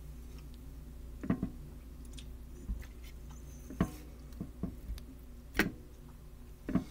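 Eating pork chops: chewing, broken by several sharp clicks and knocks of a knife, fork and dishes on a ceramic plate, over a low steady hum.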